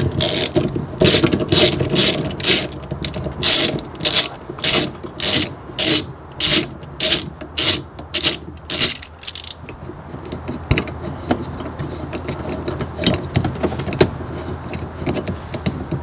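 Ratchet wrench fitted with a T50 Torx bit clicking in an even rhythm, about two strokes a second, as a seat belt mounting bolt is backed out. About nine and a half seconds in the ratcheting stops, leaving fainter clicks and handling of the bolt and trim.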